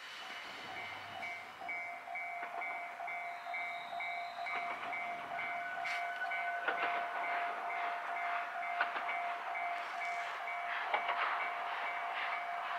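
A level-crossing warning alarm ringing with an even, repeating chime, about two to three strokes a second, while the approaching C10 steam tank locomotive and its train add a growing rumble and clatter in the second half.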